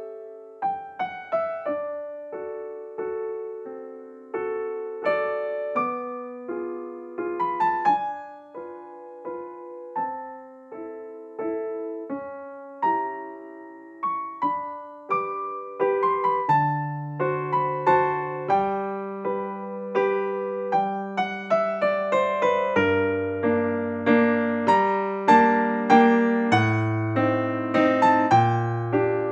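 Background piano music: a gentle melody of struck notes, each fading away, with lower bass notes joining about halfway through and the playing growing fuller and louder toward the end.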